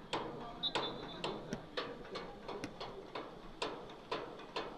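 Footballs being kicked: a quick, irregular run of sharp strikes, two or three a second.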